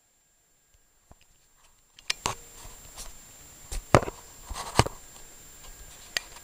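Sharp, irregular clicks and knocks of plastic Lego pieces, about seven of them, starting about two seconds in, as the model is handled.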